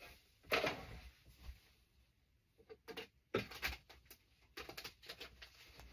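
Cards and a storage box being handled: a series of short, light rustles and soft clatters with brief pauses between them.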